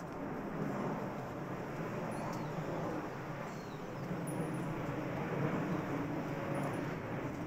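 Steady outdoor rumble and hiss of a city street scene, with a few short, faint bird chirps about two and three and a half seconds in.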